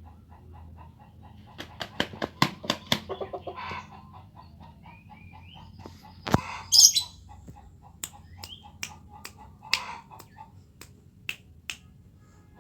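Bangkok gamecock making short clucks, among a scatter of sharp clicks and taps that come in quick runs, with one louder knock and a short hiss about halfway through.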